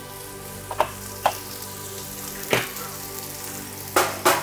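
White asparagus frying in a pan, a steady sizzle, with a few sharp clinks of crockery and two louder knocks near the end as a bowl is set down by the hob.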